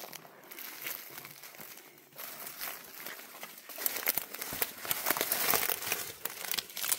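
Irregular crunching and rustling of footsteps on loose stones and dry debris. It gets louder and busier about four seconds in.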